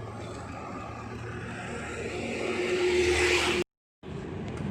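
Motor vehicle engine growing louder over a couple of seconds, over a steady low hum. Near the end the sound cuts off abruptly for a moment, as at an edit, then the hum returns.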